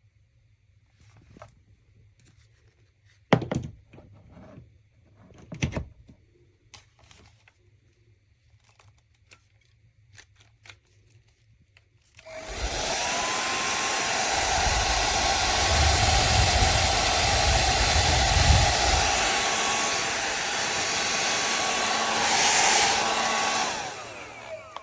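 Remington ONE Dry & Style ionic hair dryer switched on about halfway through, blowing steadily for about twelve seconds, then switched off and winding down near the end. Before it come a few light clicks and two louder knocks from handling.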